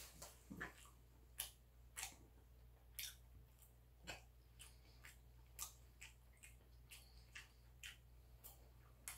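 Quiet eating sounds: a metal spoon clicking and scraping against food containers, with soft chewing, heard as short, sharp ticks at irregular intervals, about one a second.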